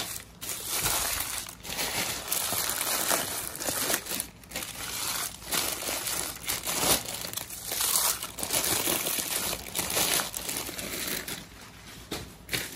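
Small plastic spare-parts bags crinkling and rustling as they are handled and shuffled, on and off with short pauses.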